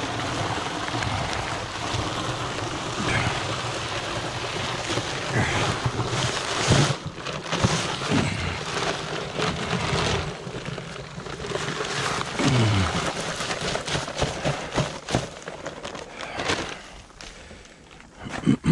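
Dry cement mix poured from a paper bag into a water-filled plastic snap jacket around a piling: a continuous rushing hiss, with scattered knocks and crackles from the bag and form, and one sharp knock at the very end.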